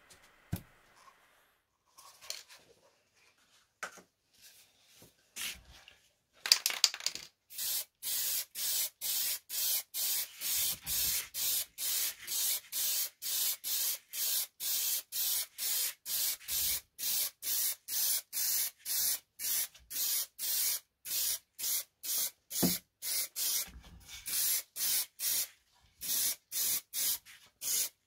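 Aerosol spray can spraying paint in short, evenly repeated hissing bursts, about two a second, after a few light knocks in the first six seconds.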